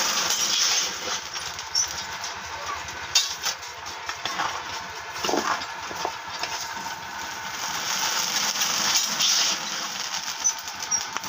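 Rice puffing into muri in a karai of hot sand over a clay oven: a steady hiss dotted with crackles, swelling about eight seconds in as a cloud of steam goes up.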